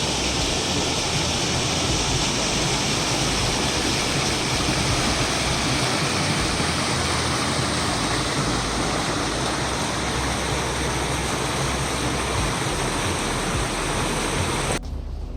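Waterfall: a steady, dense rush of falling water that cuts off suddenly near the end.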